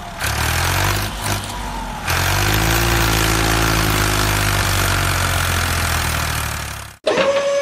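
An engine running steadily, louder from about two seconds in, then cut off abruptly near the end, where a steady high whistle-like tone begins.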